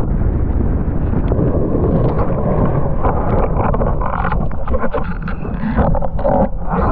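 Wind buffeting the rig-mounted camera's microphone over the rush and spray of water under a planing windsurf board. About halfway through it turns choppier, with quick slaps and splashes of water as the board carves.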